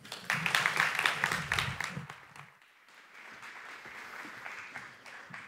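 Audience applauding, the clapping dying away after about two and a half seconds into a fainter steady hiss.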